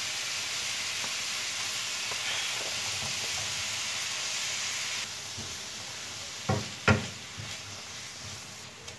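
Diced onions and red and yellow bell peppers sizzling in hot oil in a frying pan. About five seconds in the sizzle drops, and a spatula stirring them knocks against the pan twice.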